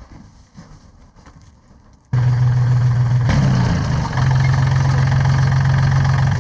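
An engine cuts in suddenly about two seconds in and runs loudly and steadily with a deep hum. Its pitch dips and wavers briefly about a second later, then holds steady.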